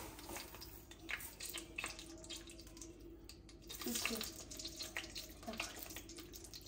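Light clinks and scrapes of a metal ladle stirring dry vermicelli in a stainless steel pot, with the pasta rattling against the pan. A faint steady hum runs underneath.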